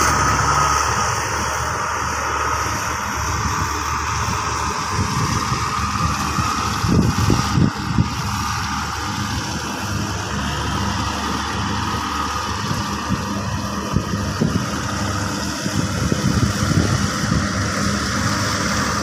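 Rice combine harvester running steadily as it cuts the field, with a few brief louder knocks about seven seconds in.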